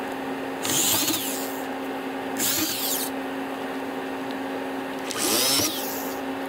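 Corded electric drill boring out pilot holes in a fiberglass duckbill spoiler with a bigger bit, in three short bursts of under a second each, a high whine with the bit biting through.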